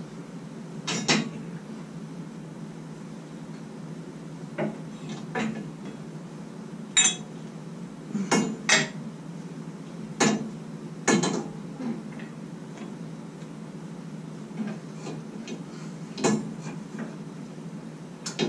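Irregular metal clinks and knocks of a Jeep TJ's front sway bar and its bushing bracket being worked into place by hand, the loudest ones through the middle, over a steady low hum.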